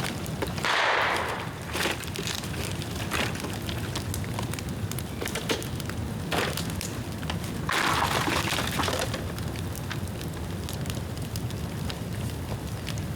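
Bonfire of damp bamboo burning: steady crackling with many sharp pops over a low rumble, and two louder hissing surges, about a second in and again around eight seconds in.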